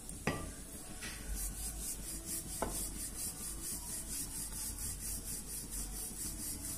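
Wooden rolling pin rolling out gram-flour roti dough: an even rubbing swish, about four strokes a second, starting about a second in. Two light knocks come in the first few seconds.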